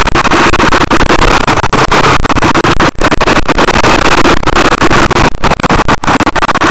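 KTM off-road motorcycle engine running, loud and distorted as it overloads the bike-mounted camera's microphone, with the audio cutting out in many short gaps.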